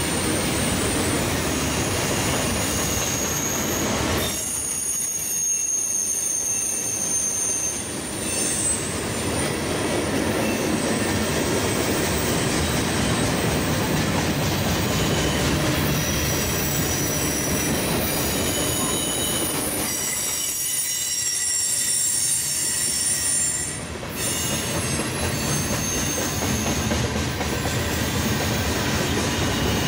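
Freight cars rolling past on steel wheels: a steady rumble and clatter with high-pitched wheel squeals that come and go. The rumble eases twice for a few seconds.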